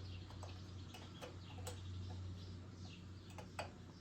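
Scattered light clicks and taps at uneven intervals from hand work on a small mower engine's throttle and choke linkage, over a steady low hum.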